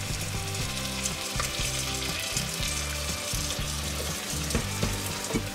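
Bacon, onions and turkey pieces sizzling in a stainless steel pot as baked-bean liquid is spooned in and the mixture is stirred with a wooden spoon. Quiet background music runs underneath.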